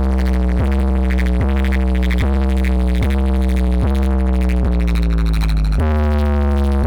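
Electronic DJ remix music with a heavy, steady bass and a synth note that repeats about every 0.8 seconds, each note sliding slightly down in pitch; the bass line changes about six seconds in.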